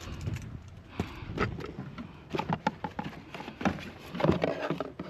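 Irregular knocks, clunks and clinks of junk being handled and shifted while rummaging through a pile of discarded household items.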